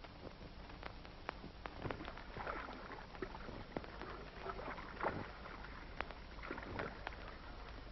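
A boat being paddled across water: paddles dipping and splashing in uneven strokes, with a few sharp knocks, over steady old-soundtrack hiss.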